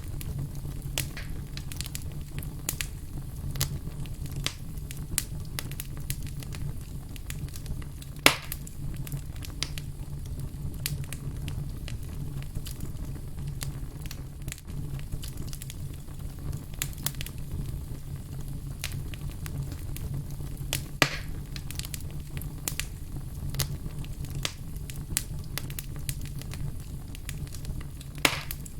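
Wood logs burning in a fireplace, with constant small crackles and snaps over a steady low rumble of the flames. Two louder pops stand out, about a third of the way in and about two-thirds of the way through.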